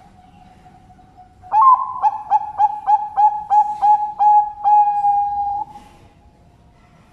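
Zebra dove (perkutut bangkok) singing its cooing song: starting about a second and a half in, an opening note followed by a quick, even run of about nine short coos, ending in one long held note, about four seconds in all.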